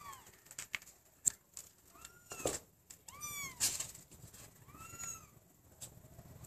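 A cat meowing about four times in short high calls, each rising and falling in pitch, with a few sharp clicks between them.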